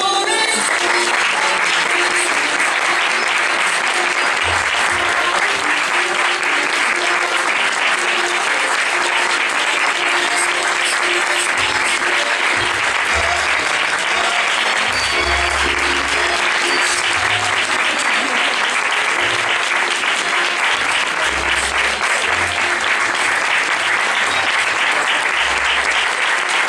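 Audience applauding loudly and steadily, a dense continuous clapping.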